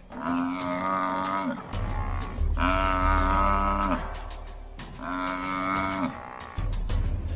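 Young African buffalo bawling in distress three times, each call about a second and a half long, holding its pitch and then dropping at the end. These are the calls of a buffalo being pulled down by lions.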